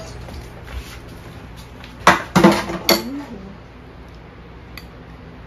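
Metal spoon clinking against the inside of a drinking glass while stirring a drink: a quick run of sharp clinks about two seconds in.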